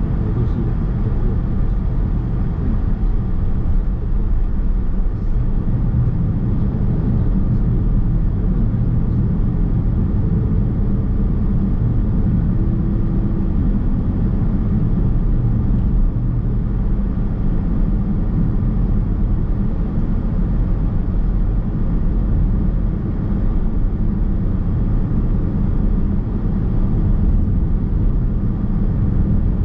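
Steady road and tyre rumble heard inside the cabin of a Nissan X-Trail Hybrid driving along.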